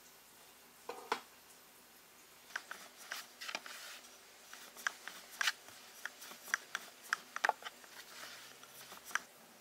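Wooden rolling pin rolling out dough on a floured wooden board, a series of light sharp clicks and taps as the pin knocks against the board. Two louder knocks come about a second in.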